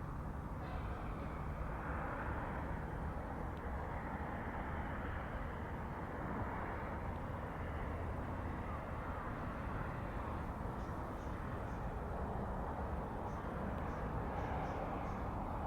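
Steady outdoor background noise, an even low rumble and hiss with no clear single source, with a few faint high ticks or chirps in the second half.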